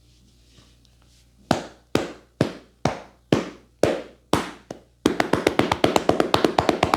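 Hands striking a person's head in an Indian barber's head massage (champi). First come eight firm slaps, about two a second. From about five seconds in they switch to a fast run of rapid chopping taps.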